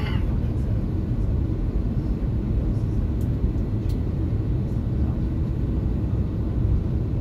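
Steady low rumble inside an Airbus A330-200's cabin as the airliner taxis after landing, its engines running and wheels rolling on the taxiway, with a few faint ticks about three and four seconds in.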